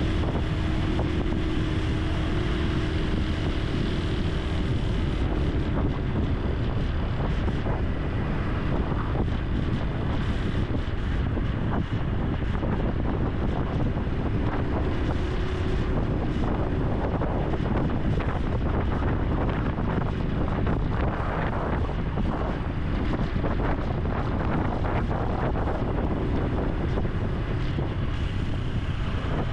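Honda Super Cub C125's single-cylinder four-stroke engine running under way, with heavy wind noise on the action-camera microphone.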